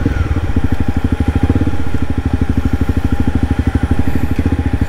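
Honda CRF250 Rally's 250 cc single-cylinder four-stroke engine running at low revs as the motorcycle rolls slowly, slowing down, with a steady rapid putter of firing pulses.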